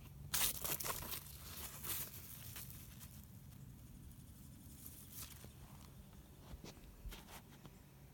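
Large squash leaves rustling and crackling as a hand pushes them aside, loudest in a few bursts in the first couple of seconds, then a handful of light crackles.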